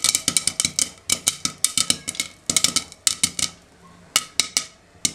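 Popcorn kernels popping in hot oil in a covered steel kadhai with a glass lid: a fast, irregular crackle of sharp pops that thins out to scattered pops after about three seconds. The slowing tells that the batch is almost fully popped.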